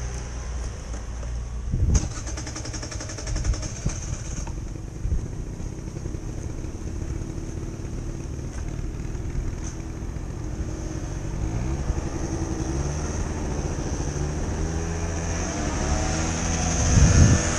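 Small rental scooter's engine running as the scooter pulls away and rides on, its pitch rising and falling with the throttle. There is a sharp knock about two seconds in and a louder rush near the end.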